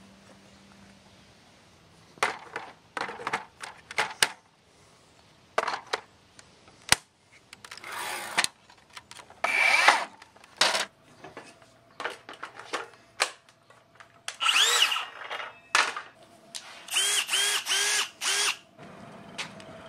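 Scattered knocks and clatters of metal gear being handled, then short runs of a Hilti cordless driver's motor spinning up and winding down. Near the end come four quick trigger pulls in a row.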